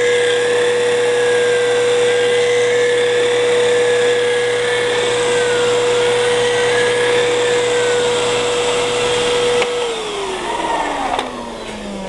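Dyson vacuum cleaner running with a steady high motor whine over a loud rush of air. Near the end it is switched off and the motor winds down, its whine falling steadily in pitch.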